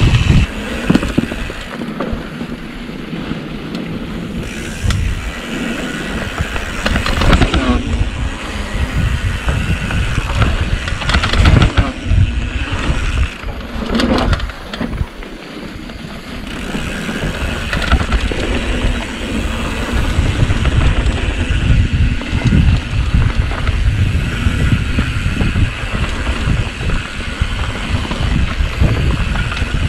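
Riding noise from a mountain bike on a dirt trail: wind buffeting the rider-mounted microphone as a heavy rumble, with tyres on dirt and knocks and rattles from the bike over bumps.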